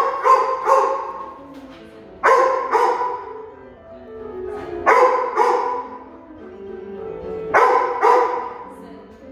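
A dog barking in repeated bursts of two or three barks, one burst every two to three seconds, each echoing in a large hard-walled hall.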